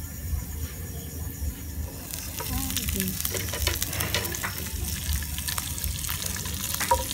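Chopped garlic frying in olive oil in a pan, sizzling. About two seconds in the sizzling turns louder and crackly as asparagus and a little water go into the hot oil.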